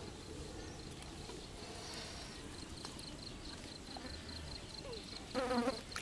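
An insect chirping in a steady run of short, high-pitched pulses, about five a second, over a quiet outdoor background. A brief voice sounds near the end.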